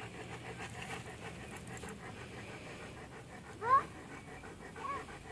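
Black-and-grey dog panting steadily with its mouth open. About two-thirds of the way through, a short, high, rising squeak cuts in as the loudest sound, and a fainter one follows near the end.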